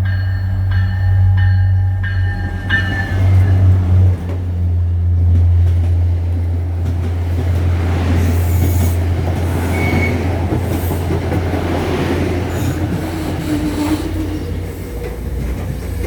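A diesel train running through a station, with a steady low engine drone and rolling wheel noise and brief squeals from the wheels near the middle. A bell rings at an even pace of about two strikes a second, stopping a few seconds in.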